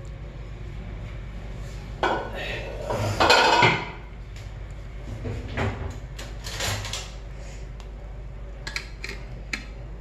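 Perforated steel plate being set on a stand inside an aluminium pressure pan and shifted into place, metal clattering and scraping on metal. The loudest rattle comes about two to four seconds in, followed by lighter clinks and a few sharp clicks near the end.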